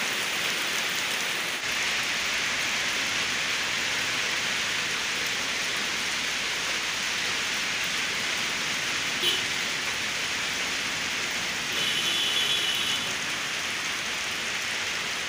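Heavy rain falling steadily on pavement and a roof in an even hiss. A brief tone sounds about nine seconds in, and a louder one lasting about a second about twelve seconds in.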